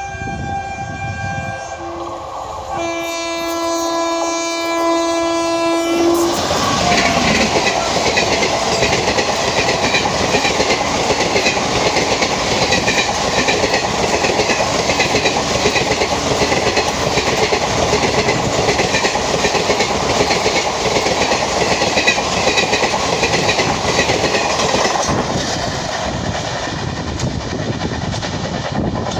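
Indian Railways locomotive horn blowing in long blasts, the last ending about six seconds in. An express train then passes close with loud, rapid wheel clatter over the rail joints, easing off near the end.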